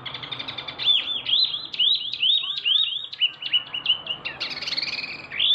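Caged wambi (mini wambi) singing loudly: a fast run of short high chirps, then a steady series of high down-slurred notes about three a second, with a denser burst of notes near the end.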